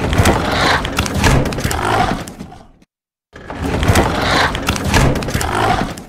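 Designed werewolf creature vocal: a rough, noisy roar of about three seconds, a short dead silence, then the same roar again.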